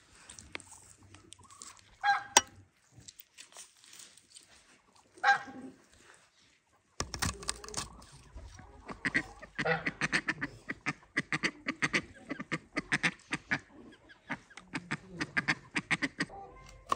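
A domestic goose honking twice, about two and five seconds in. From about seven seconds on, a knife knocks quickly and repeatedly on a wooden cutting board as raw chicken legs are cut up.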